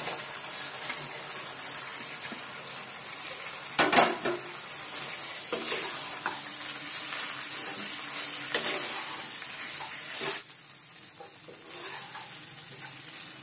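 Fried chicken pieces being stirred into a sizzling wok of sauce and vegetables with a metal spatula, the spatula scraping and clinking on the pan, with one sharp knock about four seconds in. The sizzling grows quieter near the end.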